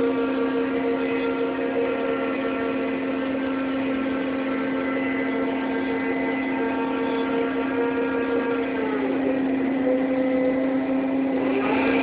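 Ship's deck crane machinery running under load while hoisting an 18-tonne grab of palm kernel: a steady drone with a whine above it. The whine drops in pitch about nine seconds in, and a new whine starts rising near the end as the crane's motion changes.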